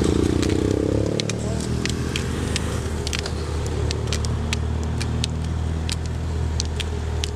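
A motor vehicle's engine running steadily, its pitch rising over the first second or so, with scattered sharp clicks throughout.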